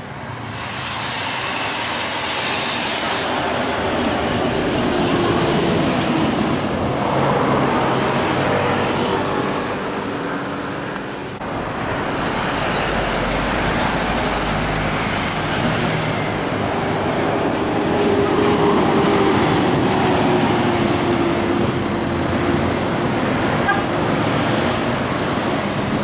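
Road traffic going by: a tour bus's engine and passing cars, a steady rumble that swells and fades as vehicles pass.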